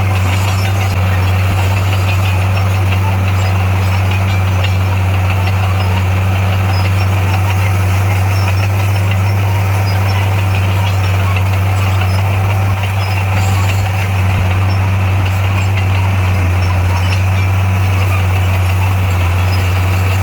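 Heavy diesel engine of earthmoving equipment running steadily at a constant low pitch.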